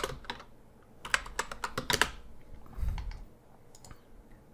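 Typing on a computer keyboard: a quick run of keystrokes about a second in, then a few scattered key clicks, with a soft low thump just before the three-second mark.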